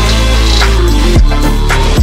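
Background music with a deep, steady bass line and a regular drum beat.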